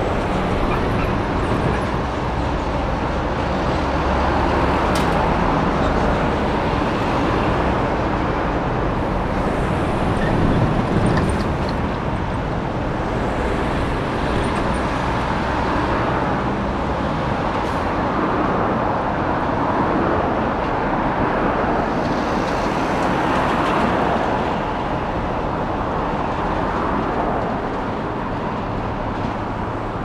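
Road traffic: a steady noise of cars and trucks driving along a street, swelling and fading every few seconds as vehicles pass.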